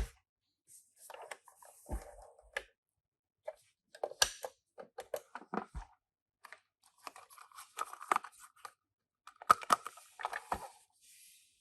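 Toy minicar packaging being opened and handled: irregular tearing, crinkling and small clicks with short pauses between them.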